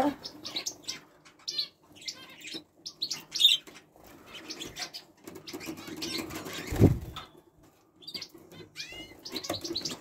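Small aviary birds, budgerigars among them, chirping in many short calls and quick glides, with wing flapping. A single low thump about seven seconds in.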